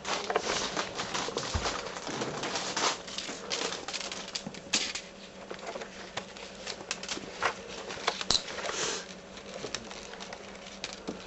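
Irregular taps, scuffs and rustling: a bit of paper on a string skittering over a tiled floor as kittens bat at it and scamper after it.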